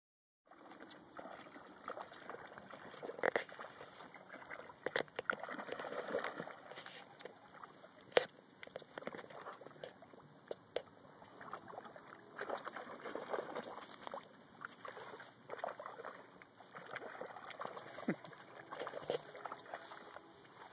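A French bulldog wading through a shallow, muddy creek, its legs splashing and sloshing through water and mud in irregular bursts.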